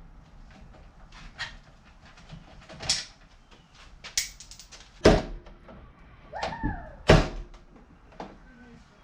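Several sharp knocks and clatters, the loudest two about five and seven seconds in, with a quick rattle of clicks just after four seconds and a brief falling squeak in between.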